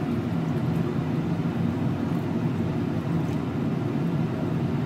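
Cold water pouring from a glass jar into a glass bowl of soy sauce marinade, over a steady low rumble.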